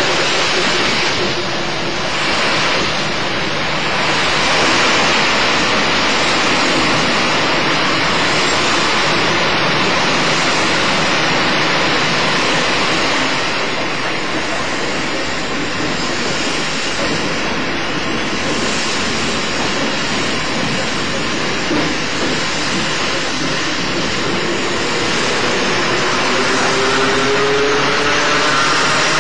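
JNR 80-series electric multiple unit motor car (MoHa 80342) running along the line: a steady rush of running noise from wheels and rails and the moving car. Near the end a whine rises slowly in pitch.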